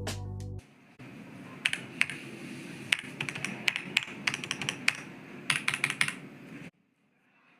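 Typing on a Monka 3098 Pro V2 hot-swappable mechanical keyboard: quick runs of key clicks with short pauses between them, stopping abruptly near the end. Background music fades out about half a second in.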